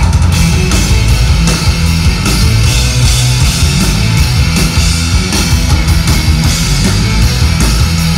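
Live rock band playing a loud instrumental passage: electric guitars and drums with a heavy low end, no vocals.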